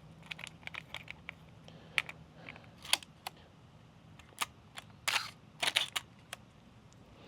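Canon AE-1 35mm film camera being handled while loading film: irregular sharp clicks and snaps of its mechanism, with a few short scraping rasps about five to six seconds in.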